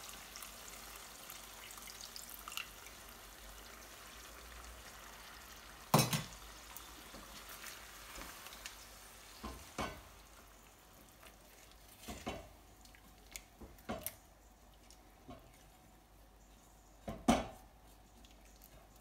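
Lamb curry sizzling quietly in a metal pan just after water is added, stirred with a spatula that knocks against the pan several times, loudest about six seconds in.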